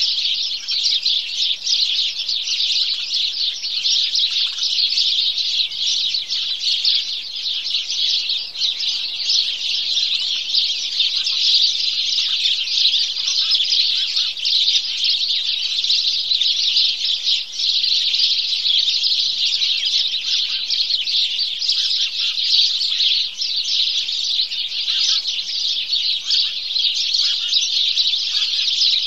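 A dense, continuous chorus of many house sparrows chirping at once, a flock chattering together with no pause.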